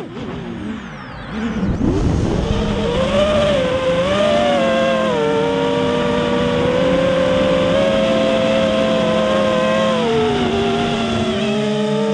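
Quadcopter's electric motors and propellers whining, the pitch rising and falling with the throttle. At the start the whine drops out for about two seconds while the craft rolls, then spins back up.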